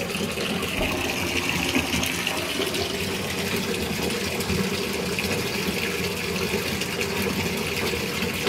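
Bathtub tap running into a shallow bath, a steady rush of water, whipping a dissolving bubble bath dough into foam.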